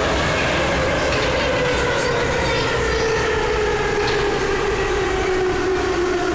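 An 81-71 metro car running through a tunnel, heard from inside the car: a steady rumble of wheels and running gear, with the traction drive's whine sliding steadily down in pitch as the train slows.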